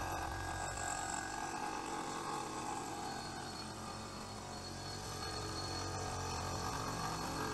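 CNC milling machine spindle running a face mill across a sand-cast aluminium engine casting, taking a light quarter-millimetre facing cut. A steady mid-pitched machining noise over a low hum, easing a little midway and picking up again.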